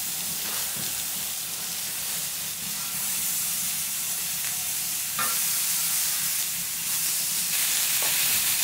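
Lamb ribs sizzling on a hot cast-iron cauldron lid (sotdukkeong) used as a griddle, the sizzle growing a little louder in steps as more pieces are laid on. A light metal clink about five seconds in.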